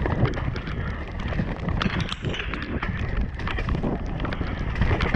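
Mountain bike rattling and clattering at speed over wet rock and roots: a dense, irregular run of knocks and clicks from the tyres, chain and frame, over a low rumble of wind on the helmet camera's microphone.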